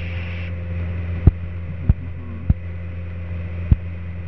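Steady drone of a Cessna 172P's four-cylinder Lycoming engine and propeller in cruise, heard from inside the cabin. Several short sharp clicks sound through it, about a second apart.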